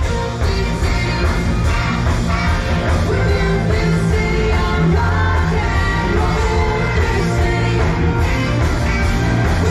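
Student rock band playing a rock song live, with singing over the band.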